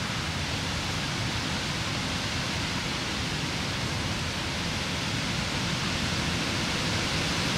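Steady rushing noise of wind, even and unbroken.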